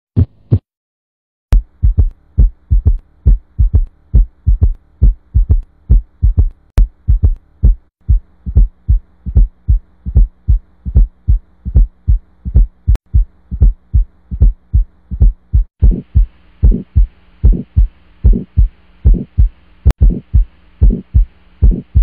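Heart sounds heard through a stethoscope: a steady run of lub-dub heartbeats from teaching examples of normal first and second heart sounds and of a fourth heart sound, broken by a short pause about a second in. From about two-thirds through a faint hiss runs under the beats.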